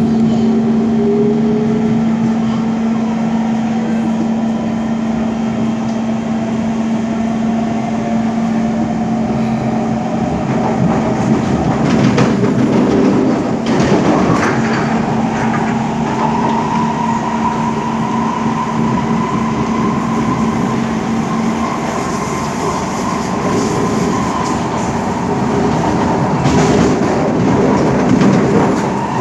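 Kawasaki C151 metro train running, its traction motors whining in tones that climb in pitch as it picks up speed, over steady wheel and rail noise. A steady low hum cuts off about two-thirds of the way through.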